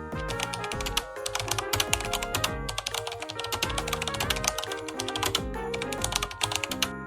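Background music with a light, bouncy tune, overlaid by many quick, rapid clicks.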